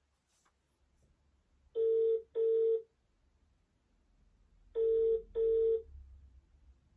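Telephone ringback tone from a phone's speaker while an outgoing call waits to be answered: two double rings, each a pair of short buzzy tones, about three seconds apart.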